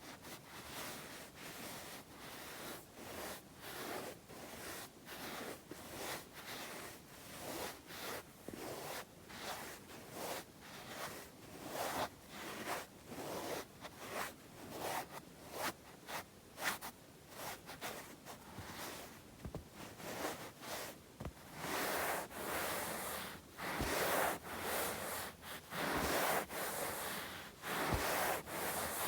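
Bare palms rubbing together in a steady back-and-forth rhythm, a dry rustling swish about once a second, growing louder in the last third. A few sharp finger taps come near the end.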